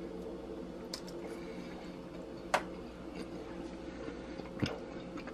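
Three short clicks of a steak knife and fork against a ceramic dinner plate while meat is cut, the loudest about halfway through, over a steady low electrical hum.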